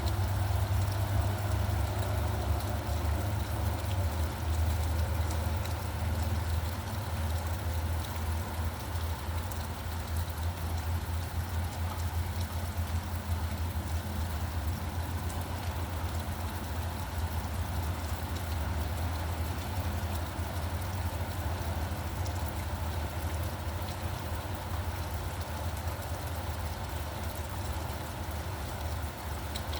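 Steady low rumble of vehicle engines, a little louder in the first few seconds, over an even hiss of rain.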